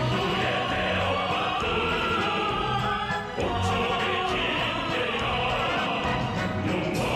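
Dance music with singing voices and an orchestral accompaniment, with a short break about three seconds in.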